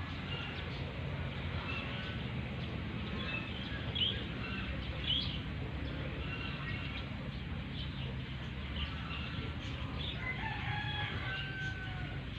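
Chickens and a rooster: short chirps and clucks throughout, and a rooster crowing once, about ten seconds in, over a steady low rumble.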